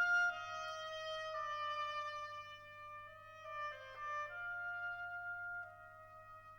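Background music: a slow melody of held notes on a wind instrument, over a low steady hum, fading near the end.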